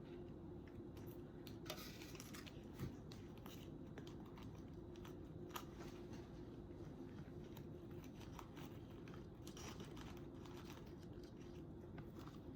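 Faint scattered clicks and rustles of craft materials being handled on a table, over a steady low hum.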